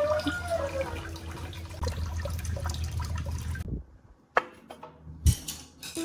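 Running water, steady for several seconds and then cutting off abruptly, followed by two sharp knocks about a second apart.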